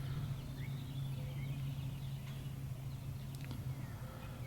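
A steady low hum, with faint short bird chirps scattered over it.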